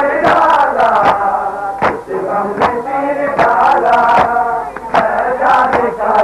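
A crowd of men chanting a noha, a Muharram lament, in unison, with the sharp slaps of chest-beating (matam) landing on the beat about once a second.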